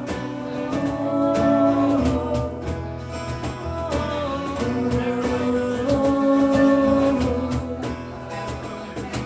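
Live band music with guitar and singing, the voice holding long sustained notes over a steady strummed rhythm.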